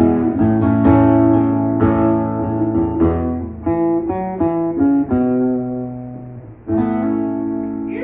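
Acoustic guitar played solo, strumming and picking the closing chords of a song. The playing fades out, then one last chord is struck near the end and left ringing.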